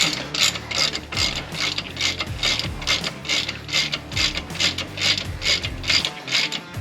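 Socket ratchet clicking in quick, even back-and-forth strokes, about three a second, as an 18 mm socket tightens the rear brake caliper bracket bolts.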